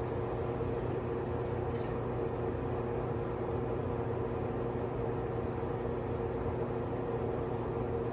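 Steady low background hum with a faint steady tone in it, unchanging throughout.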